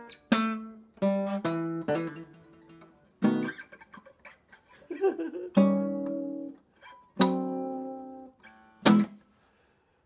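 Acoustic guitar playing a blues riff: single plucked notes and strummed chords, each struck sharply and ringing out as it fades. It stops briefly near the end.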